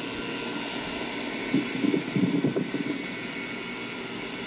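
Comfortmaker central air conditioner condenser unit running steadily, heard played back through computer speakers, with a few louder rough bursts a little before the middle.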